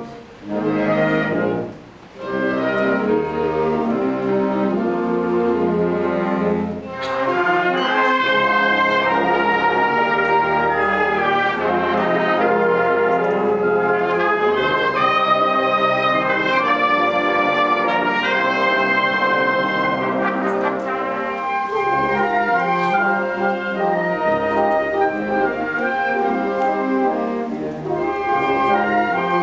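A high school wind band playing a slow, lyrical piece in sustained full chords, with brass to the fore. The music breaks off briefly twice in the first two seconds, then swells with a crash across the whole band about seven seconds in.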